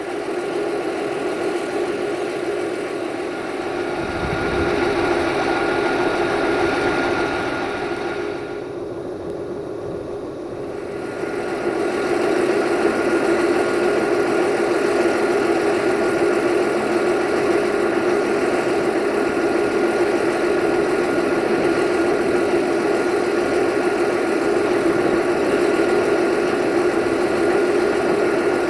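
Diesel-electric locomotive engine running steadily, a Romanian CFR Class 64 (GM-engined rebuild) approaching. It grows louder about twelve seconds in and then holds steady.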